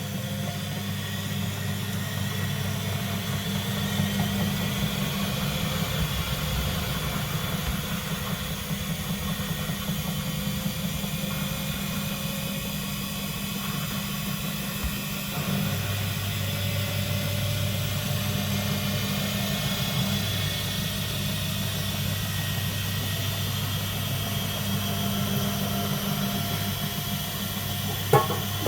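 Front-loading automatic washing machine running with its back and top covers off: a steady low hum, with a few sharp clicks near the end.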